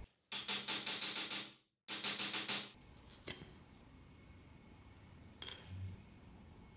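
Wooden block being knocked in two quick runs of rapid taps, about six a second, jarring an oil-soaked broken drill bit loose from its hole, followed by a couple of light clicks.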